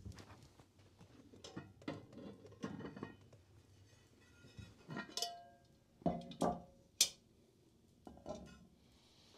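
Cooking pots and lids being handled, with scattered knocks and clinks of metal. One clink about five seconds in rings briefly, and a sharp click follows about two seconds later.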